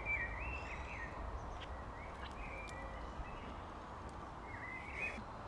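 Steady outdoor background noise with a bird singing a few short phrases in the distance: near the start, about halfway and near the end.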